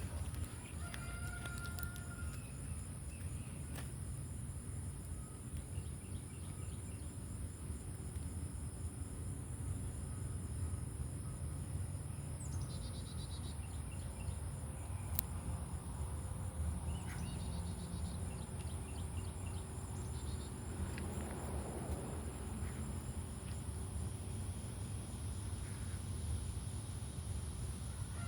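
Steady high-pitched insect trilling, with a low rumble underneath and a few short chirps from a bird partway through.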